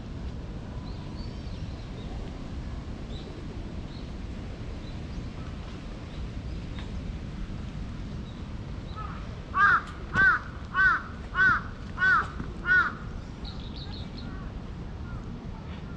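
A crow cawing six times in an even run of short, arched calls about two-thirds of the way through, over a faint steady outdoor background murmur.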